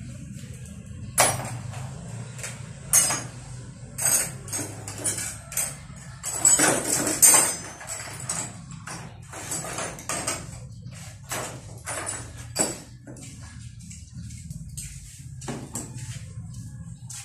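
Irregular metallic clinks and rattles of tools and parts being handled while working on a motorcycle, busiest about six to seven seconds in, over a steady low hum.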